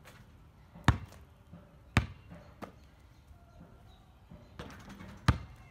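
A basketball knocking against the hoop and bouncing on an asphalt driveway during close-range shooting. There are loud single knocks about a second in, about two seconds in and near the end, with a lighter one shortly after the second.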